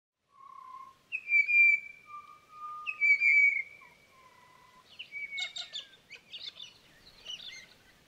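Birds singing: two phrases of clear whistled notes, each a low note, a loud high note and a middle note, the second phrase following about two seconds after the first. From about five seconds in come short, jumbled chattering calls.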